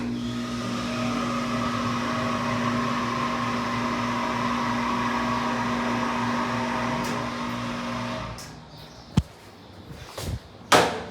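Hydraulic elevator power unit's pump motor running with a steady hum, then winding down and stopping about eight seconds in, the sign that the car has finished its run. A sharp click and a couple of knocks follow near the end.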